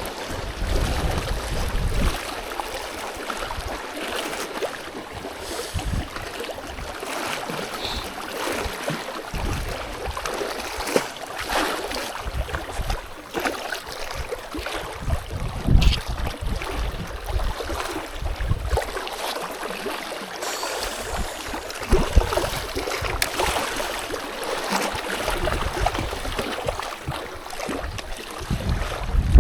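Strong gusty wind buffeting the microphone, with low rumbles coming and going over a steady rushing hiss and a few sharp ticks.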